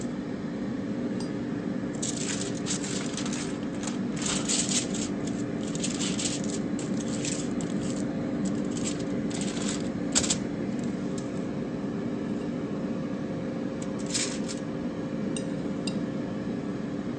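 Wooden skewers clicking and scraping against a foil-lined baking sheet and a ceramic plate as skewered bacon-wrapped smokies are lifted off and set down, with foil crinkling. The clatter comes in quick clusters, thickest in the first half and again twice later. A steady low hum runs underneath.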